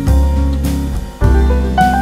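Instrumental music with a deep bass line and changing held notes, briefly dipping about a second in.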